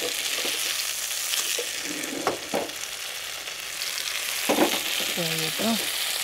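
Chicken paprika sizzling steadily in a frying pan over a gas flame, turned with metal tongs.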